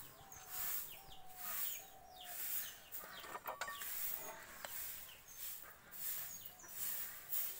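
Chickens clucking over a high hiss that pulses a little faster than once a second, with a few light metal clinks about halfway through.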